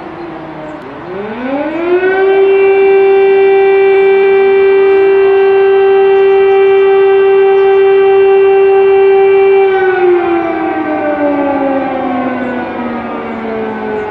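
Air-raid siren winding up over about a second and a half, holding one steady tone for about seven seconds, then slowly winding down. The tail of an earlier fall in pitch is heard at the start.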